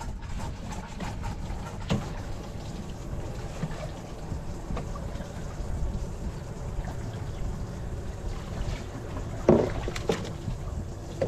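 Wind buffeting the microphone and water slapping against the hull of a small drifting boat, a steady low rumble with light clicks, and two short knocks near the end.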